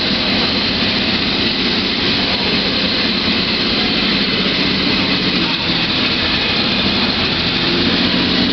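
Air-cooled flat-twelve engine of a Gulf-liveried Porsche 917 race car running at low revs as the car creeps forward. The engine note is loud and steady.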